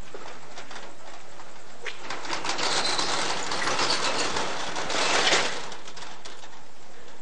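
Crisp rustling and crinkling of a folded paper note as it is pulled out from behind a gate intercom. The sound swells from about two seconds in and stops sharply a little after five seconds.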